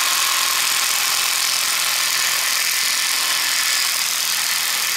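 Gas torch flame hissing steadily while heating the steering knuckle for a ball joint press.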